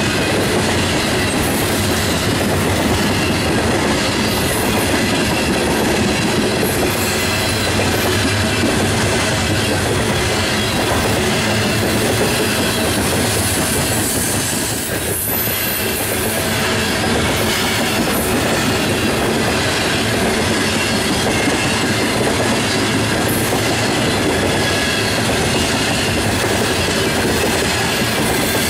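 Norfolk Southern coal cars rolling past close by: a steady, loud rush of steel wheels running on the rails, with a brief high wheel squeal about halfway through.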